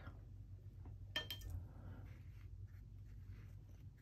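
A few light clinks about a second in as a watercolour brush knocks against the palette, followed by faint soft rubbing as paint is picked up, over a low steady room hum.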